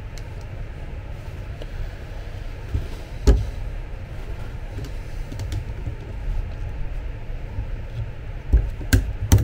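Pliers and locking pliers clicking and knocking against the metal gear and threaded lead screw of an electric bed actuator as the parts are gripped and turned: one sharp knock about three seconds in and a few more near the end, over a steady low rumble.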